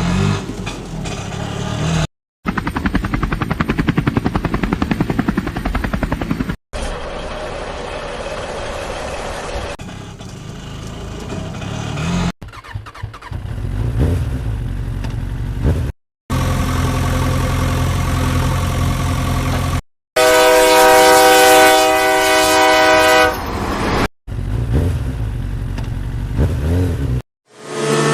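A string of short vehicle sound clips cut hard one after another: engines running, with a loud steady horn blast about two-thirds of the way through.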